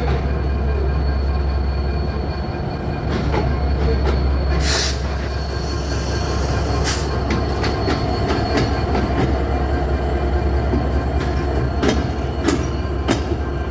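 EMD diesel-electric locomotive engine running with a steady, deep hum, with a few sharp clicks and a short hiss about five seconds in.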